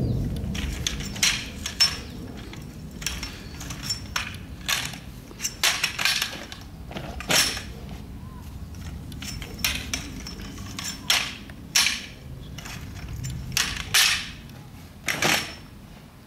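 Flag fountain's sectional poles being folded apart and packed into their carry bag: an irregular run of sharp clicks and knocks, about one or two a second, with handling of the bag.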